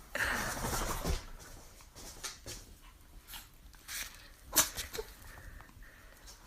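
Small Chihuahua-Pomeranian mix dog sneezing: a long breathy burst at the start, then a sharp, louder sneeze about four and a half seconds in.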